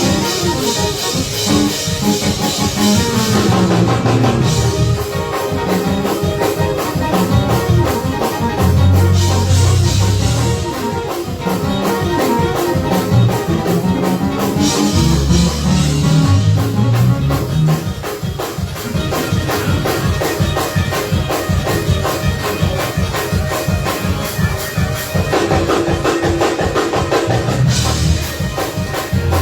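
Live gospel church band playing an up-tempo praise break, with drum kit and bass driving a fast beat.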